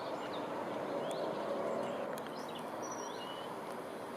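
A few faint, short bird chirps over a steady outdoor background hiss.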